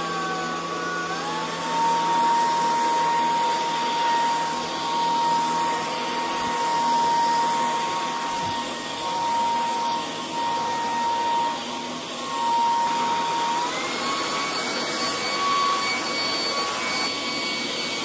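Hompany cordless stick vacuum's motor running with a steady whine and rush of air as its floor head is pushed over carpet. The whine drops in pitch about a second in, when it is switched down to its minimum power setting, and steps back up about three-quarters of the way through as the power is raised again.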